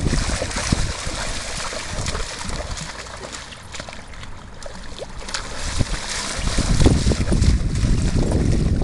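Splashing of feet and a small dog's legs wading through shallow lake water, louder in the first second and again over the last couple of seconds, quieter in between. A low wind rumble on the microphone runs under it.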